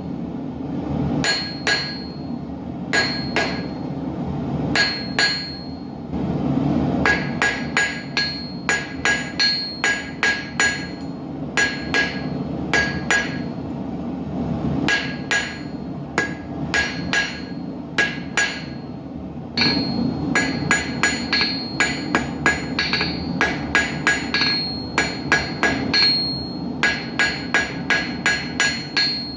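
Hand hammer striking steel on an anvil in quick runs of blows, several a second, each blow ringing with a bright metallic ping, with short pauses between runs. A steady low rumble continues underneath.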